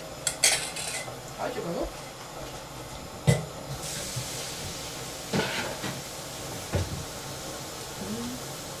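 Kitchen clatter of metal cookware on a gas stove: a bowl and pans knocked and set down, several sharp knocks, the loudest about three seconds in. A steady hiss sets in about four seconds in.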